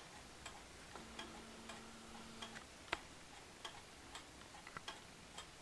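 Quiet ticking of a West German weight-driven pendulum wall clock, about two ticks a second.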